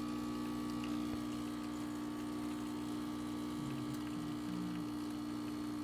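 Lelit espresso machine's pump running steadily with a constant hum while it pulls an espresso shot under brew pressure.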